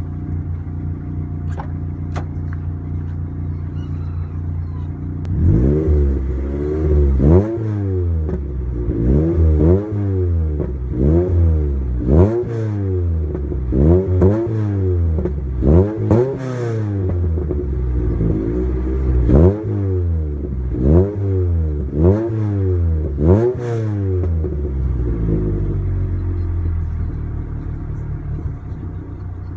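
Ford Racing Puma 1.7-litre four-cylinder engine running cold through a Magnex stainless exhaust with 4-2-1 manifold and sports cat, heard at the tailpipe. It idles for about five seconds, is then blipped a dozen or so times about every second and a half, each rev rising sharply and falling back, and settles back to idle near the end.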